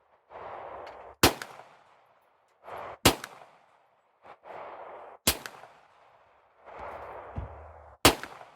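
Four single shots from a semi-automatic pistol, spaced about two seconds apart, each a sharp crack that dies away quickly.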